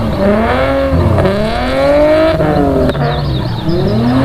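A sports car's engine revving hard as it is driven between cones, its pitch rising and falling again and again as it accelerates and lifts off, with a brief drop about three seconds in.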